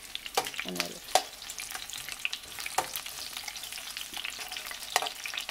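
Garlic cloves, onion and bay leaves sizzling and crackling in hot oil in a frying pan, with a few sharp clicks of metal tongs moving them about.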